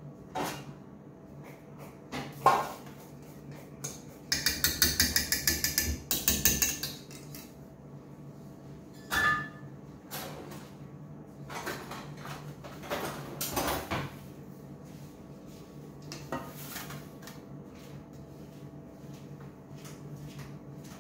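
Kitchen clatter of a metal baking pan and a steel mixing bowl being handled on a stone countertop. There are single sharp knocks, a fast rattling run of knocks about four to seven seconds in, and a few more clanks, then it goes quiet near the end.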